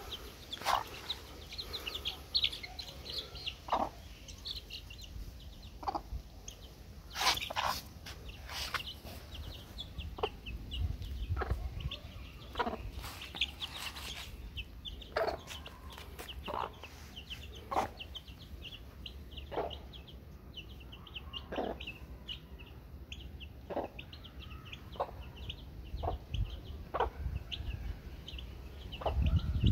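A brood of young chicks peeping continuously in short, high chirps, while a hen gives low clucks every second or two.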